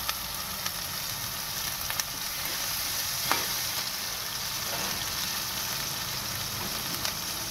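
Sliced onions and ginger-garlic paste sizzling steadily in hot oil in a metal pot while being fried, with a few short clicks as the metal slotted spatula stirs against the pot.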